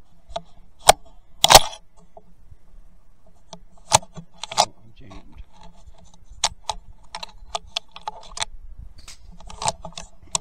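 Handling noise from a scoped rifle picked up by a camera mounted on it: scattered small clicks and knocks, with two sharp loud ones about a second and a second and a half in.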